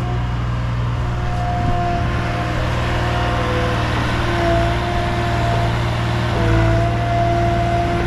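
An engine running steadily with a low hum. Its speed shifts a little about four seconds in, and again just after six seconds, when it picks up slightly.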